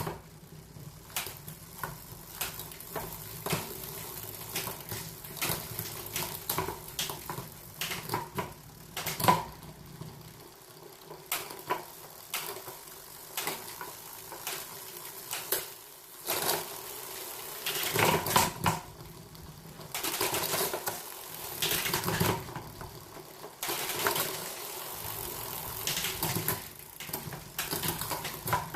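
Irregular metallic clicks, clinks and knocks from a bicycle freewheel and tools being handled, with a few longer stretches of rubbing or whirring.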